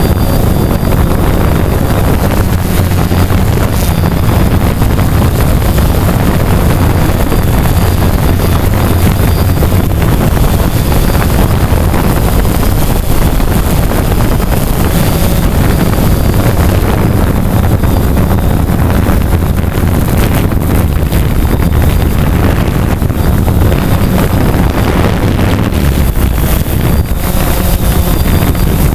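Multirotor drone's motors and propellers running steadily, picked up by the drone's own onboard camera, with wind on the microphone.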